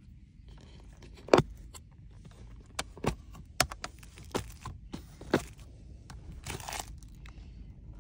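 Sharp plastic clicks and knocks as an electric lunch box is handled and its latched lid unclipped and opened, the loudest click about a second and a half in. A rustle of plastic wrapping follows late on.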